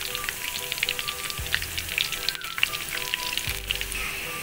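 Pakoras (gram-flour batter fritters) deep-frying in hot oil in a kadhai, the oil sizzling steadily with many small crackling pops.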